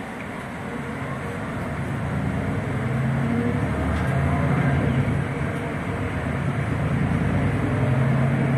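Solaris Urbino 12 city bus heard from inside the cabin, its engine and drivetrain pulling away and accelerating, growing louder over the first three seconds and then running steadily, with road noise.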